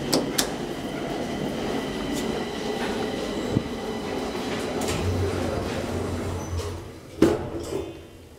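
Two quick clicks as the elevator's down button is pressed, then a steady rumbling noise. About seven seconds in, a sharp thump as the elevator doors shut, after which it falls quieter.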